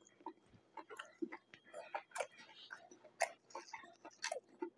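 Close-miked chewing of a mouthful of veggie patty wrap: wet, sticky mouth clicks and smacks at an irregular pace, a few each second.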